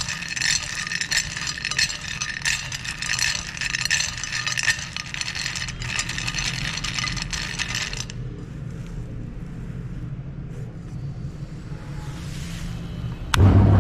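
Meat grinder grinding chocolate bars, a dense rattling and scraping crunch over a low motor hum for about eight seconds, then only the quieter hum. Near the end a click is followed by a much louder steady motor hum starting suddenly.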